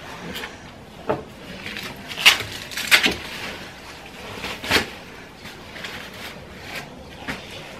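Plastic rustling and crinkling of a disposable nappy and wipes being handled during a nappy change, in irregular sharp crackles.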